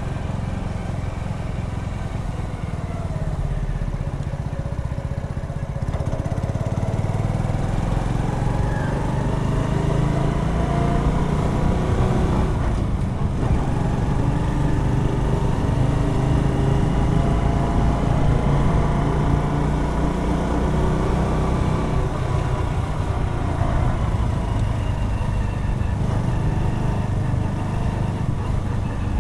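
Keeway Superlight 125 motorcycle engine running under way, its pitch rising and falling as the bike speeds up and slows, with wind noise on the microphone. Louder from about six seconds in.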